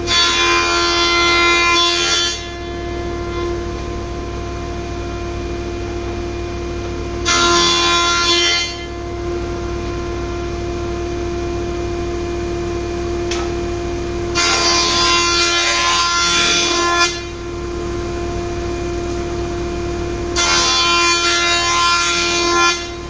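Jointer (surface planer) running with a steady hum, with four louder bursts of cutting as a board is pushed over the spinning cutterhead to flatten its face.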